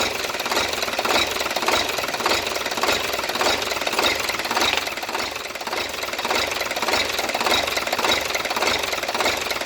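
Hino Lohan truck's diesel engine running steadily with a fast, even knocking clatter, while its fuel setting is being adjusted for more power.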